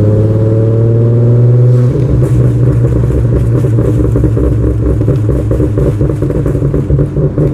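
2011 Ford Mustang's 3.7-litre V6 revving with a slowly rising pitch for about two seconds, then breaking into a choppy run of exhaust crackles and pops for the rest. The pops come from a deceleration tune that retards ignition timing only above 2,000 rpm.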